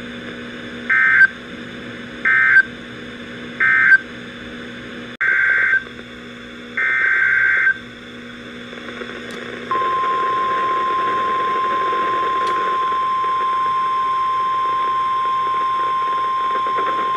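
NOAA Weather Radio Emergency Alert System signals: three short screechy digital data bursts that close one warning, then two longer data bursts that open the next warning's header. About ten seconds in, the steady single-pitched 1050 Hz weather radio alert tone starts and holds for the rest.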